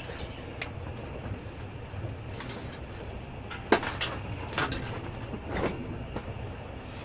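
Passenger train running at speed, heard from inside the carriage: a steady low rumble with irregular sharp knocks and clicks, the loudest a little under four seconds in.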